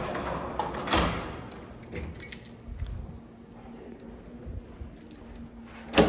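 Metal rattling that ends in a sharp clunk about a second in, followed by scattered light clicks and a brief jingle over a faint steady hum; another knock comes at the end.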